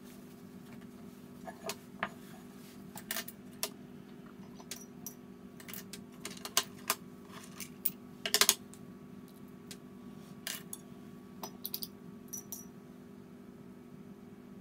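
Scattered clicks and light metallic clinks of a watercolour pan tin and paintbrushes being handled and set down on a wooden desk, the loudest cluster a little past the middle, over a steady low hum.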